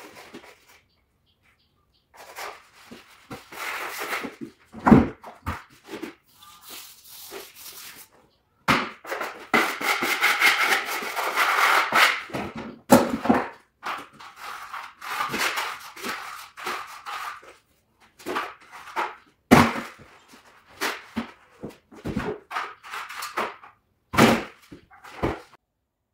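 Wallpaper being smoothed onto a wall by hand: paper rustling and rubbing against the wall in uneven stretches, with a few sharp knocks.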